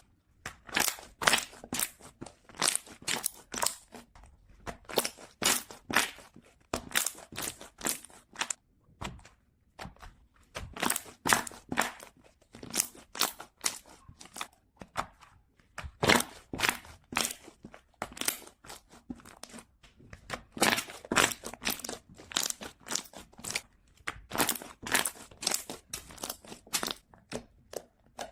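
Bubble slime being pressed and squished by hand, giving bouts of rapid crackling pops, a new bout every second or two.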